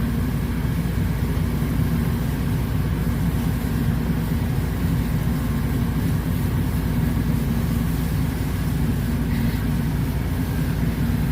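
A motor vehicle engine running with a steady low drone.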